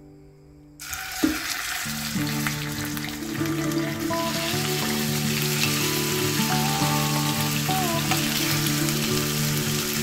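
Raw lamb pieces hitting hot oil in a frying pan and sizzling. The sizzle starts suddenly about a second in and then holds steady and loud.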